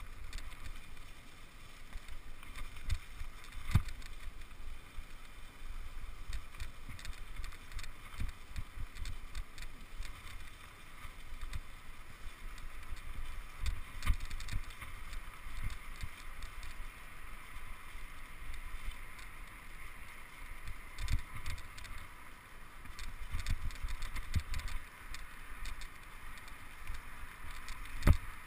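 Bicycle rolling along a trail of dry leaf litter: a steady rolling hiss from the tyres, low rumble of wind on the microphone, and sharp knocks from bumps in the trail, the loudest near the end.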